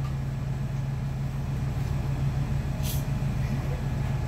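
Steady low mechanical hum of commercial ramen-kitchen equipment, with a brief hiss about three seconds in.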